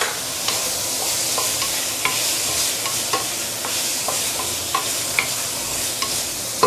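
Chicken feet and mushrooms sizzling in hot oil in a stainless steel wok while being stir-fried with a wooden spatula, which knocks against the pan in light taps about twice a second over a steady hiss.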